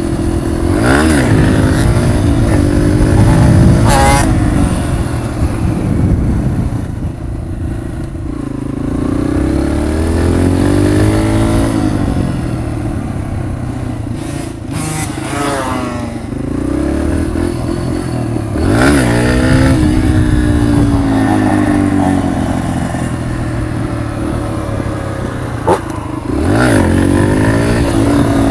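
Dirt bike engine under way, revving up and dropping back again and again as it shifts through the gears, with a sharp knock near the end.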